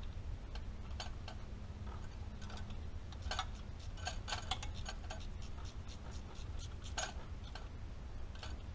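Hand ratchet clicking in short, irregular strokes, bunched into quick runs a few times, as the banjo bolts of the injector fuel return line on a first-gen Cummins 12-valve diesel are snugged down.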